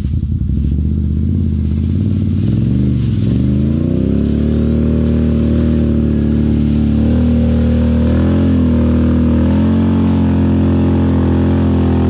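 ATV engine running at low revs, then revving up about three seconds in and held at high revs, its pitch wavering slightly.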